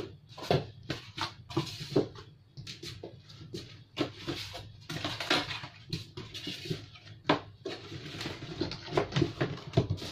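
Cardboard boxes and packing inserts handled and put back into a printer's carton: a run of irregular knocks, taps and rustles.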